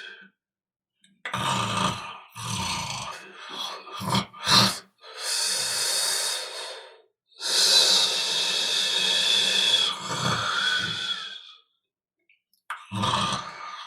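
A sleeping person snoring: a quick run of short snorts and grunts, then two long noisy breaths of about two seconds each, a pause, and another snore near the end.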